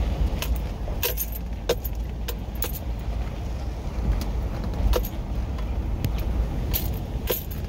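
Car rolling slowly along an unpaved gravel road, heard from inside the cabin: a steady low rumble with scattered sharp clicks and crackles from stones under the tyres.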